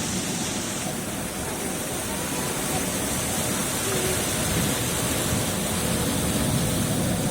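Steady rush of ocean surf breaking on a sandy and rocky shore, with no single wave crash standing out.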